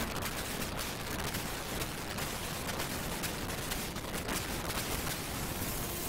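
Humsafar Express passenger train running: a steady rushing noise full of rapid, irregular crackling clatter.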